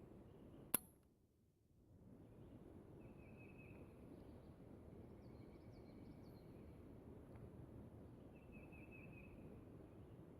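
A single sharp rifle shot from an AR-type rifle firing a cast-bullet .223 Remington load, about a second in, after which the background briefly drops away. Otherwise faint outdoor quiet, with insects chirping a few times.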